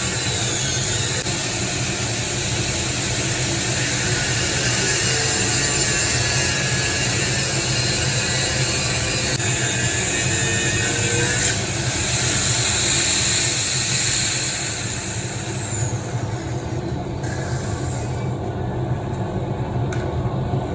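Power tool cutting quarter-inch steel plate: a loud, steady, harsh cutting noise that eases off somewhat about 15 seconds in.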